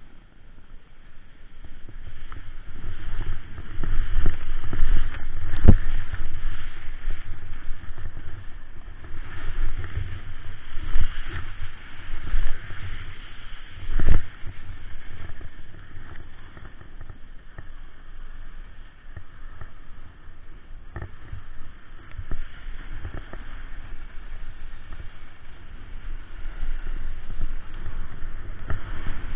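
Snowboard sliding and carving down a groomed corduroy piste, its base and edge scraping over the ridges of the snow in swells, under a low rumble of wind on the microphone. Two sharp thumps stand out, about six seconds in and, the loudest, about fourteen seconds in, when the rider's gloved hands come down to the snow.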